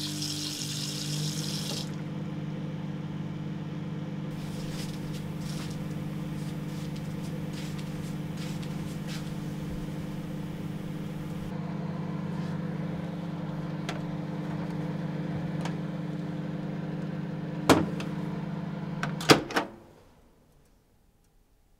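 Tap water runs for the first couple of seconds. Then a countertop microwave oven runs with a steady hum. A sharp click comes a few seconds before the end, then a couple more clicks as the door is opened, and the hum cuts off.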